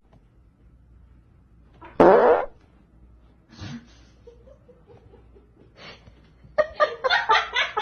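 A loud, short fart-like rasp of about half a second, about two seconds in, then a quick choppy run of short sounds near the end.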